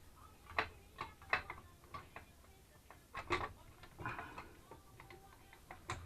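Scattered light clicks and taps of metal parts and hand tools being handled while a part is fitted onto a pit bike. The taps come at irregular intervals, the loudest about three seconds in, with a brief scrape a little after it.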